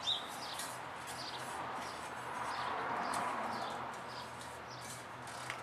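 Small birds chirping repeatedly over a steady background rush.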